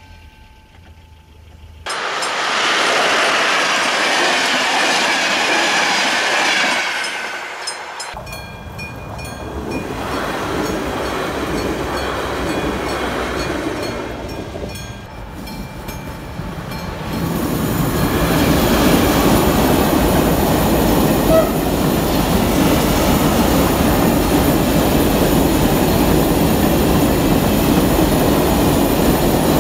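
Trains passing railway level crossings as a loud rushing noise of wheels on track. It is heard in several separate stretches that change abruptly about 2 and 8 seconds in, and from about 17 seconds in it is loudest and steady.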